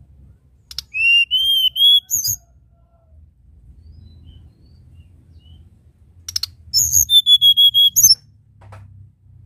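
Hill blue flycatcher singing two short phrases of clear whistled notes. In the first phrase three slightly arching whistles follow a few clicks. The second phrase opens with a quick run of ticks, holds one long steady whistle, and each phrase ends on a sharp higher note.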